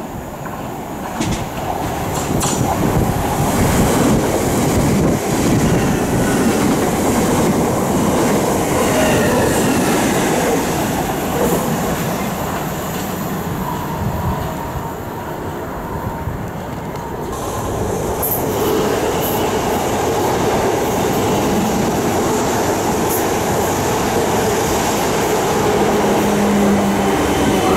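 South Western Railway electric multiple-unit trains (Class 450 and Class 455) running along the platforms: a steady rumble of wheels on rail. Near the end a whine falls in pitch as a train slows.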